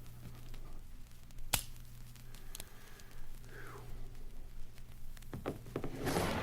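Sparse sound effects for a Russian roulette sketch: a sharp click about a second and a half in, a fainter click a second later, a short falling squeak, then a swell of hissing noise near the end, over a steady low hum.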